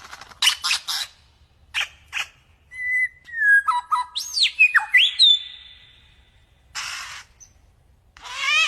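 Lyrebird singing a varied song. It opens with harsh rasping notes, moves to clear whistles and swooping glides, gives a hissing burst, and ends with a fast run of sweeping notes.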